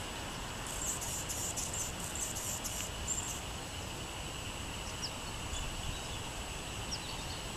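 Outdoor ambience: a steady, high-pitched insect-like drone, with a run of short, very high chirps between about one and three seconds in.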